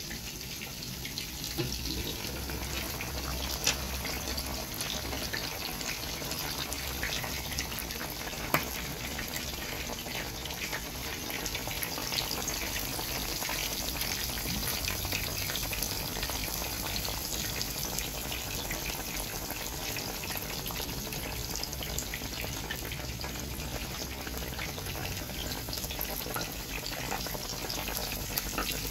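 Fish simmering in vinegar broth in a pot, a steady bubbling hiss with scattered small pops.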